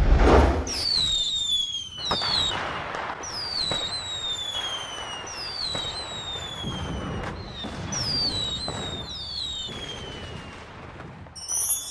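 Fireworks sound effect: a loud burst at the start, then a string of about seven high whistles, each falling in pitch over about half a second to a second, mixed with crackling, popping bursts.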